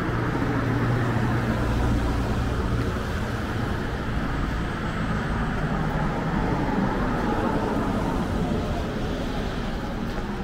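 City street traffic: vehicles running past, with a steady low engine hum that is strongest in the first few seconds.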